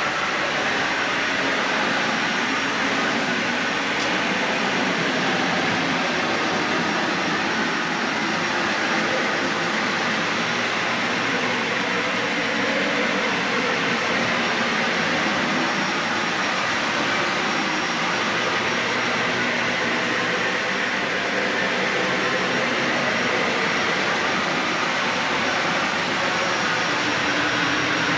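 Dyson Ball Animal 3 Extra upright vacuum cleaner running steadily over carpet: a constant rush of motor and air with a faint high whine.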